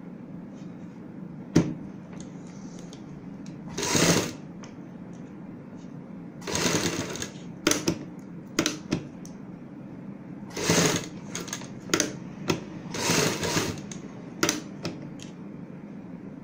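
Sewing machine stitching in about a dozen short stop-and-start runs, from brief blips to about a second long, over a steady low hum.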